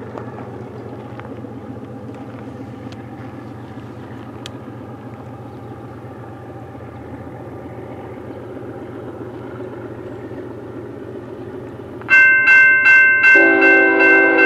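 Low steady rumble of a distant approaching freight train, then about twelve seconds in a railroad crossing warning bell starts ringing loudly with rapid repeated strikes, about three a second. About a second later a lower sustained chord, the approaching locomotive's horn, joins for about two seconds.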